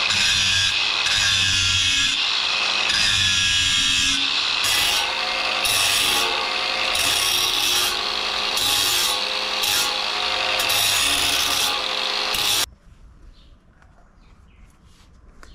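Cordless angle grinder with an abrasive disc grinding the steel blade of an old sugarcane machete, a steady hissing grind that surges and eases as the disc is pressed on and lifted. It cuts off suddenly about thirteen seconds in, leaving faint clicks.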